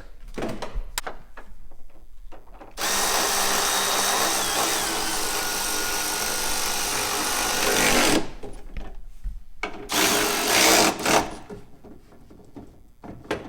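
Power drill running, most likely driving the striker bolts back into the door: one long run of about five seconds, then a second, shorter run of about a second.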